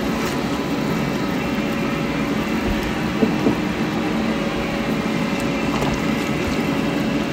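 Steady mechanical hum with an even rushing noise, unchanging throughout.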